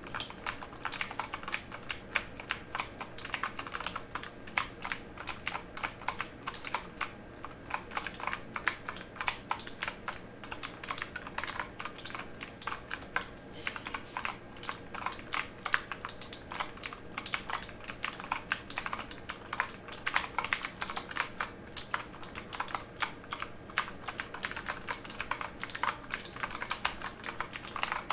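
Continuous typing on a mechanical keyboard: a fast, irregular stream of key clicks and clacks.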